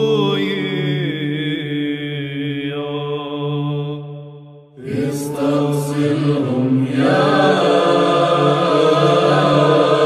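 Orthodox Byzantine choir chanting a psalm in Arabic over a steady held low drone. One phrase fades away about four seconds in, and after a short break the next phrase begins and swells to a fuller sound.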